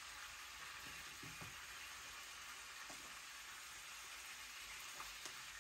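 Faint, steady sizzle of food frying in a pan over a wood fire, with a few soft ticks.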